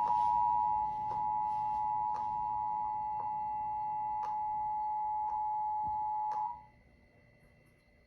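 Emergency Alert System two-tone attention signal, held steady with a faint click about once a second, then cutting off about six and a half seconds in. It announces that an emergency alert message is about to be broadcast.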